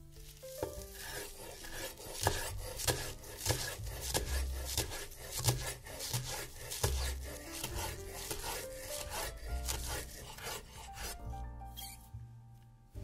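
Repeated rasping strokes of food being grated on a grater, over soft background music.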